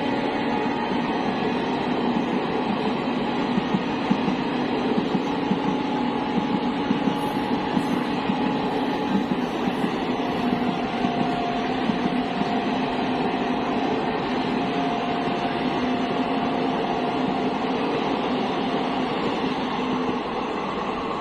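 Train passing on the rails: a steady rumble of wheels with rapid clatter and a faint steady whine that drops slightly in pitch about halfway through.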